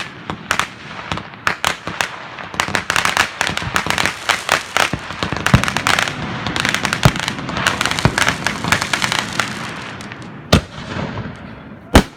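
A fireworks display: rapid, dense crackling and popping cracks from bursting shells, with two louder single bangs near the end.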